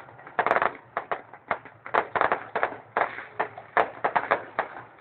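Fireworks going off in a rapid, irregular string of sharp bangs and crackles, several a second, some loud reports ringing on briefly.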